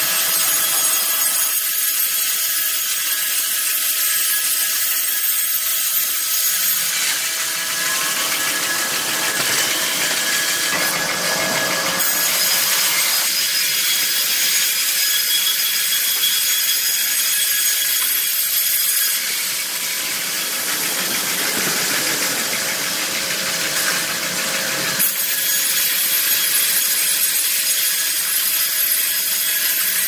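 Multi-head band resaw cutting a timber cant: continuous sawing noise with a steady high whine from the running band blades. The sound shifts in character a few times.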